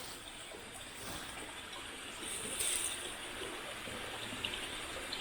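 River water flowing steadily, an even rushing trickle, with a brief louder hiss about halfway through.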